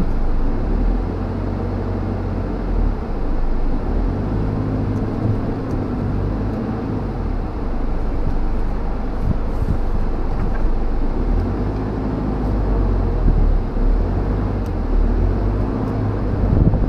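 Steady low rumble of a 4WD's engine running at idle, with no change in pace.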